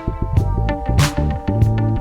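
Instrumental background music with a steady drum beat and a bass line.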